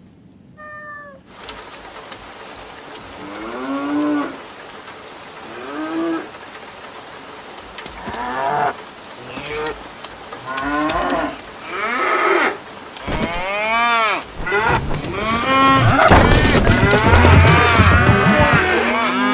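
Cattle mooing: a series of separate moos rising and falling in pitch about every two seconds, then several overlapping calls near the end.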